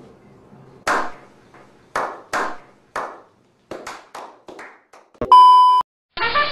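A few people giving a slow clap: separate hand claps about a second apart, then quicker and fainter. About five seconds in comes a thump and a short, steady countdown beep, and music with brass starts near the end.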